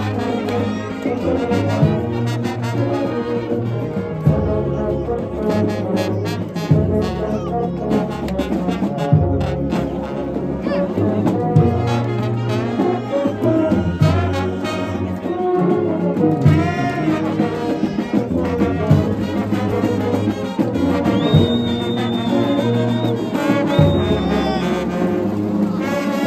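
Brass band dominated by tubas and sousaphones playing a hymn tune, with a strong pulsing tuba bass line under the melody. A high steady tone sounds twice near the end.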